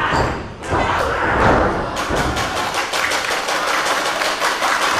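A wrestler's body thudding onto the ring canvas, then a run of quick, evenly spaced claps from the audience, about three or four a second.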